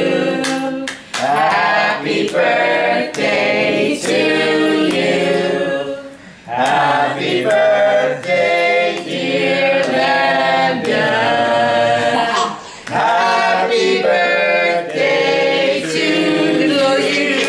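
A group of people singing a birthday song together without accompaniment, in long phrases with short breaks between them.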